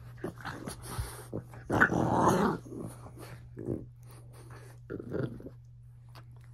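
French bulldogs growling as they play-fight, in uneven bursts with the loudest, longest growl about two seconds in and shorter ones later.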